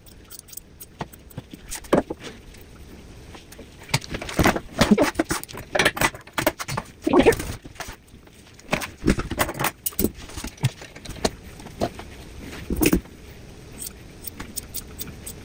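Grooming scissors snipping through a Shih Tzu's long coat, an irregular run of sharp metallic snips, with several louder bursts of rustling and handling noise as the dog shifts on the grooming table.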